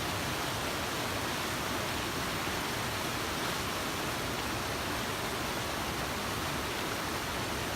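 Steady rush of a waterfall, an even full-range roar of falling water.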